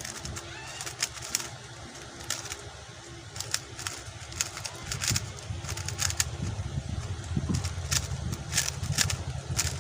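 QiYi X-Man Tornado V2 speed cube being turned quickly through a timed solve: a rapid, irregular string of light plastic clicks from the layer turns, getting busier after about five seconds, over a steady low hum.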